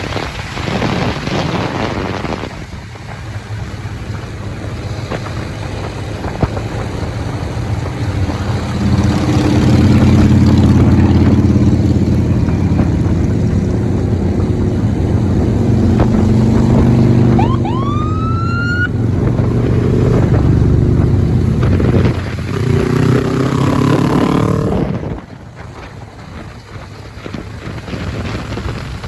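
Motorcycle engine running under throttle, its steady note strongest through the middle, with wind noise on the microphone. A short rising whistle-like tone sounds about two-thirds of the way in, and the sound drops away near the end.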